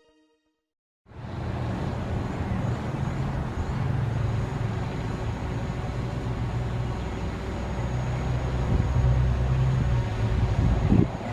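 Steady, low, rumbling background noise with no distinct events, beginning about a second in after a brief silence; no siren tone is sounding yet.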